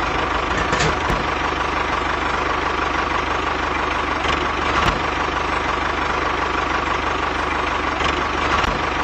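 Tractor engine idling steadily with a fast, even chugging, and a few faint clicks.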